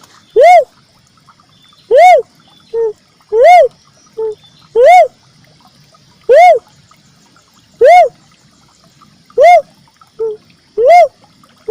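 Uncal merah (cuckoo-dove) lure call: a short hooting note that rises and falls in pitch, repeated about every one and a half seconds, eight times, with a shorter, lower note slipped in between a few of them.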